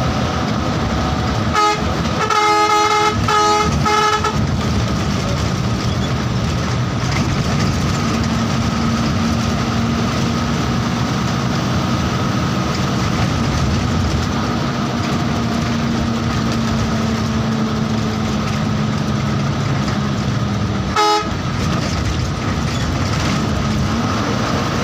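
Bus running on the road with a steady engine and road drone. A multi-tone horn sounds four or five short blasts about two seconds in, and one more short blast near the end.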